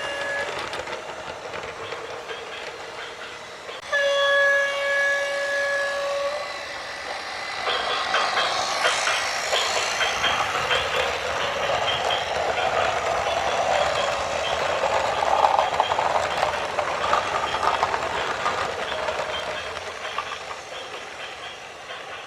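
A horn blast ends about half a second in, and a second long, steady horn blast sounds about four seconds in. Then, from about seven seconds in, a dense rattling clatter builds and slowly fades, like a train passing with its wheels clattering on the rails.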